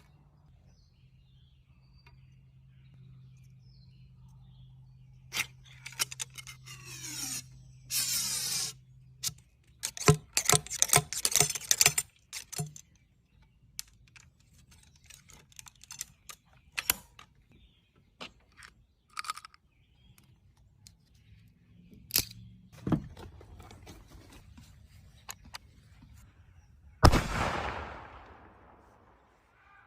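Scattered clicks, knocks and scraping handling noises, then near the end a single loud antique rifle shot with a long fading echo.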